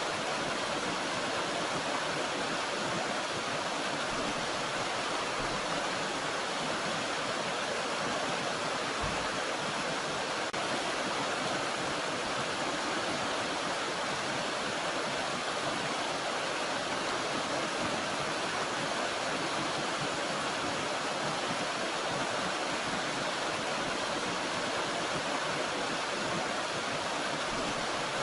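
Running water of a small mountain stream, a steady even rush.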